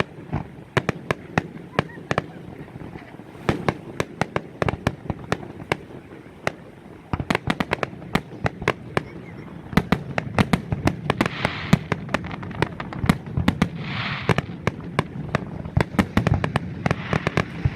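Fireworks display: aerial shells bursting in a fast, irregular string of bangs, with a dense flurry of reports about seven seconds in.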